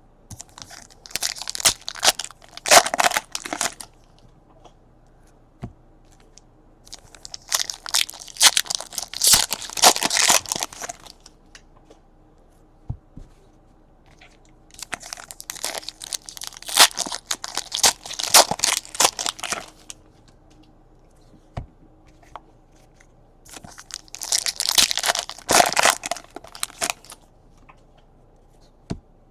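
Plastic trading-card pack wrappers being torn open and crumpled, in four separate bursts of crinkling and tearing a few seconds apart.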